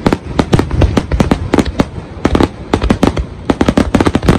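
Aerial firework shells bursting in a dense barrage, several sharp bangs a second overlapping with booms and crackle.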